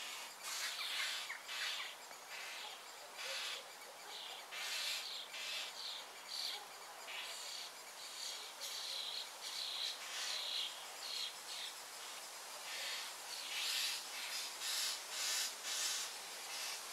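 Short irregular rasping rustles, one after another, of hands handling and tugging the edge of an animal hide stretched on a wooden pole frame.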